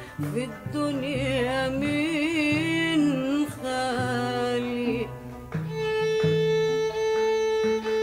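Arabic orchestral music: bowed strings play an ornamented, wavering melody, then settle on a long held note over shifting lower notes for the second half.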